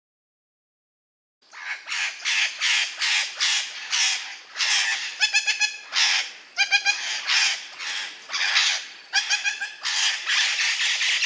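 A bird giving a rapid run of rough, raspy calls, about two to three a second, beginning a second and a half in. A few of the calls carry a clearer pitched note.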